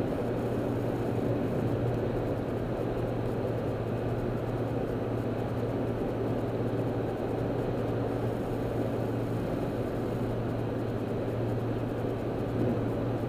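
Car cabin noise at freeway speed: steady tyre and road rumble with a constant low engine drone underneath.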